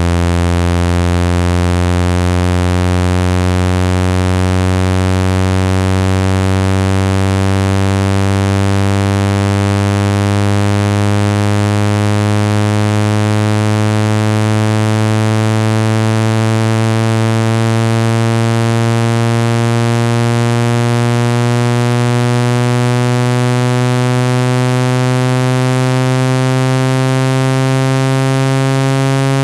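Speaker-cleaning tone for pushing water out of a phone speaker: a loud, steady electronic low tone with many overtones, rising slowly and evenly in pitch.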